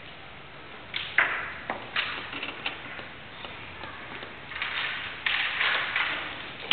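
Sharp taps and knocks of chess play: plastic chess pieces set down on a vinyl board and the chess clock button pressed, several quick clicks about a second in and a busier cluster past the middle.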